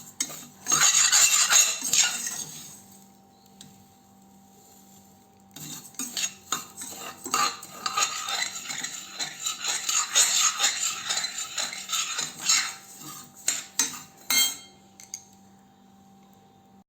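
A spoon scraping and clinking against a heavy-bottomed pan as roasted, puffed borax is emptied into another vessel. A burst of scraping comes about half a second in, then a pause, then a long run of quick scrapes and clinks that thins out near the end.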